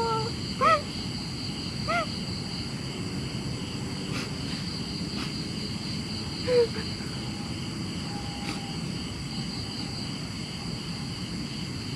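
A woman crying: three short rising sobbing whimpers, two in the first couple of seconds and a third about halfway through, over a steady high drone of night insects.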